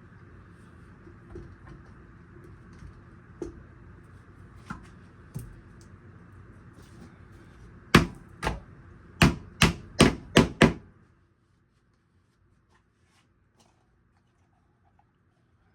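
A hammer tapping on wood: seven sharp strikes in under three seconds, the first the loudest. Before them come a few lighter knocks.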